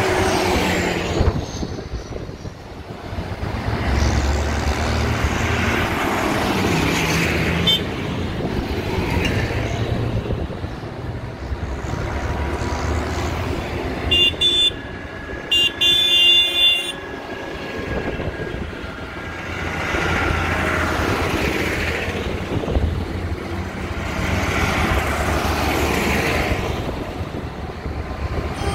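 Diesel tractors driving past one after another, the engine rumble swelling and fading as each goes by. About halfway through, a vehicle horn sounds in a few short toots.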